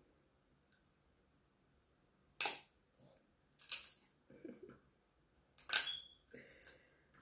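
King crab claw shell cracked and snapped apart by hand: three sharp cracks over about three seconds, with smaller crunching of shell between them.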